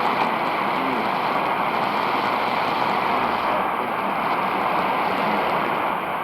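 Steady hiss of shortwave static from a Grundig Yacht Boy 400 portable receiver tuned to the BBC's 3915 kHz tropical-band signal, with no clear voice coming through the noise.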